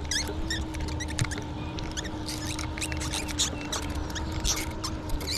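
Fishing reel being cranked to bring in a hooked fish, with scattered irregular clicks and small splashy noises over a steady low hum.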